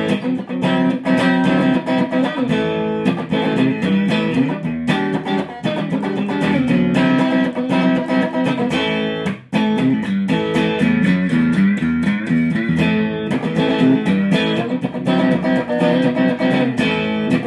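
Fender Sixty-Six electric guitar played through an amplifier with light crunch distortion, chords strummed and picked, with one brief break about halfway through.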